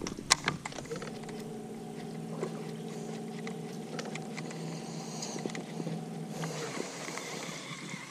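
Electric bow-mount trolling motor running with a steady hum, starting about a second in and cutting off about six seconds in. A few sharp clicks near the start.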